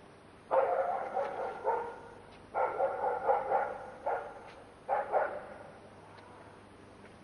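A dog barking in several quick runs of barks, for about five seconds.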